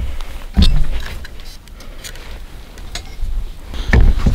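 Knocks and rustling as a hunter climbs into a tree stand and handles his gear beside the camera: one sharp knock about half a second in, quieter shuffling and rustle of clothing, then several heavy thumps near the end as the compound bow is set on the padded shooting rail.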